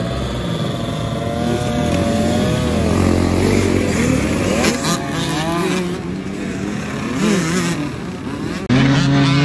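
Several dirt bike engines running and revving, their pitch rising and falling. Near the end a louder, closer engine comes in suddenly.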